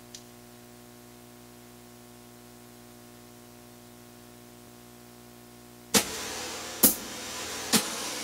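A faint, steady electrical hum for about six seconds. Then the keyboard's accompaniment starts: a soft hissing percussion wash with sharp hits about once a second.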